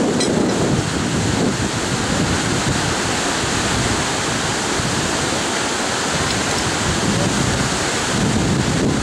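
Wind buffeting the microphone: a loud, steady rushing rumble with no distinct events.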